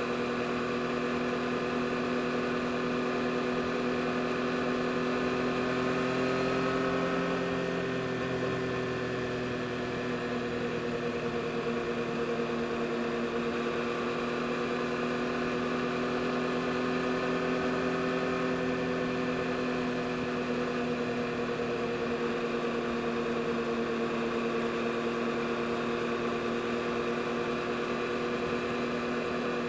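2022 Yamaha MT-09 SP's 890 cc inline-three engine running at a steady cruise. Its pitch rises slightly about six seconds in, then eases back down and stays nearly even.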